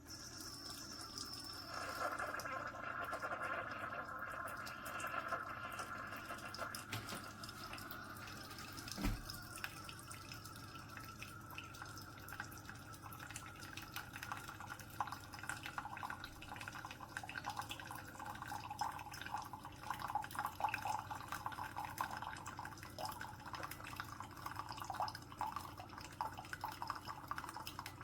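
Keurig K-Supreme single-serve pod coffee maker brewing, with coffee streaming and dripping steadily into a mug. A single low knock comes about nine seconds in.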